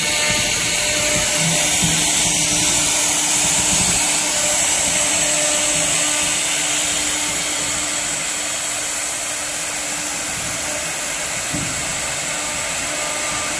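Two 6 kW air-cooled HQD spindles of a twin-head CNC wood router running together and cutting a wood sheet: a steady high-pitched whine and hiss.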